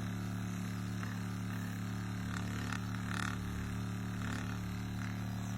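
Steady low mechanical hum made of a few even low tones, unchanging throughout.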